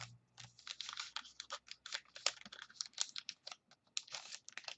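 A 2013 Panini Playbook football card pack being cut and torn open by hand: a quick, irregular run of small crackles and clicks from its wrapping and card stock.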